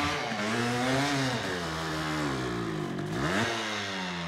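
Off-road vehicle engine running under changing throttle, its pitch rising and falling several times, with a sharp dip and climb about three seconds in.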